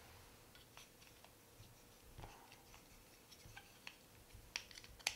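Faint clicks and taps of hard plastic toy parts handled: the grey cannon of a 1982 Mattel Castle Grayskull playset being worked gently into its orange turret mount, with a few sharper clicks near the end.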